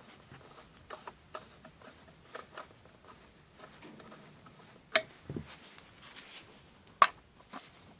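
Small clicks and light metal taps of a bolt being handled and tried in a hole, with two sharper clicks about five and seven seconds in.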